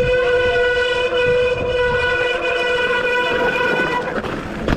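Mountain-bike disc brakes squealing under braking on a descent, several shrill tones sounding together in a loud, steady howl that eases slightly near the end. The brakes are soaked and muddy, the usual cause of such squeal.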